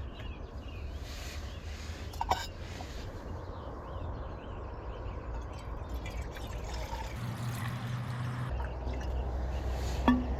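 Water being poured into a camping kettle, with a sharp knock about two seconds in and another near the end.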